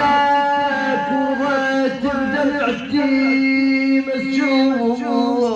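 Male voice singing a mournful Shia lament (nai) in long, drawn-out, wavering notes.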